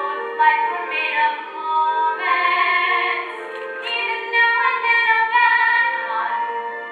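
A woman singing a musical-theatre solo in held, sustained notes. The recording sounds thin, with no bass and no top.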